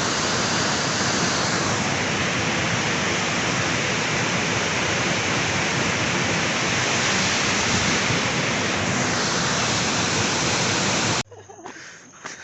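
Waterfall rushing in a steady, loud roar of falling water. It cuts off suddenly about a second before the end, leaving a much quieter scene with a few light knocks.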